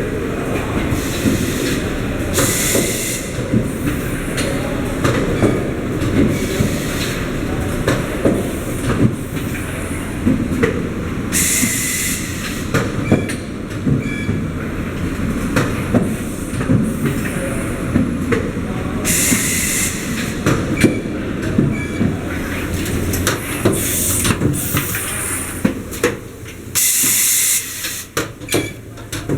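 Robotic plastic welding system running, with steady clattering and clicking of its mechanisms. A loud hiss lasting about a second comes four times, roughly eight seconds apart, with each machine cycle.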